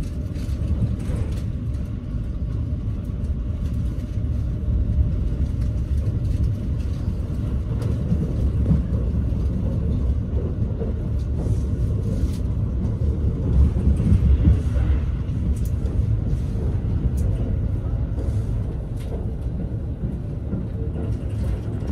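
Steady low rumble of a limited express train running on the rails, heard from inside the passenger car.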